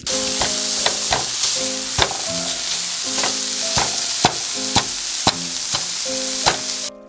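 Ground meat sizzling loudly in a frying pan while a spatula stirs it, with sharp clicks of the spatula against the pan. The sizzle cuts off abruptly near the end.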